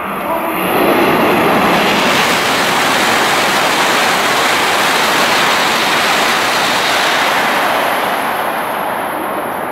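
Coupled H5 series Hayabusa and E6 series Komachi Shinkansen running through a station at high speed: a loud, steady rush of wheel and air noise that swells about a second in and eases off slightly near the end as the train moves away.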